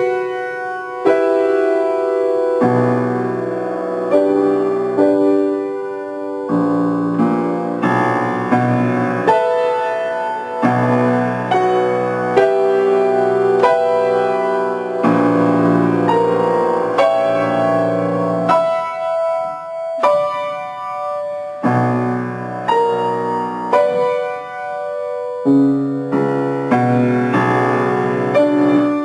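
Grand piano played with the left hand alone: a slow, sorrowful adagio of sustained chords and single notes, a new chord struck about every one to two seconds and left ringing.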